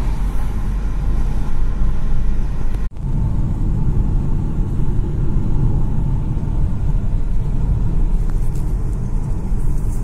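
Road noise inside a moving car's cabin: a steady low rumble of engine and tyres, cutting out for an instant about three seconds in.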